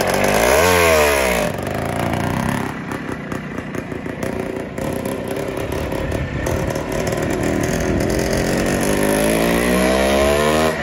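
Greeves single-cylinder two-stroke motorcycle engine revved in a quick rise-and-fall blip about half a second in. It then pulls away, and its pitch climbs steadily again as it accelerates near the end.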